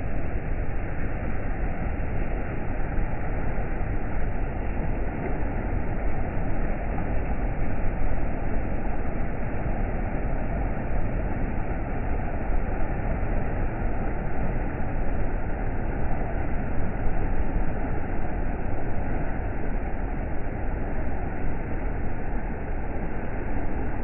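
River water rushing between granite boulders: a steady, deep rushing noise with no breaks.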